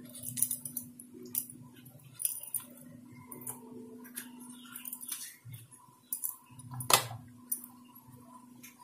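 Metal vegetable peeler scraping the pulp and skin from pieces of snake gourd: soft, scattered scrapes and small metallic clicks, with one louder click about seven seconds in. A faint steady hum runs underneath.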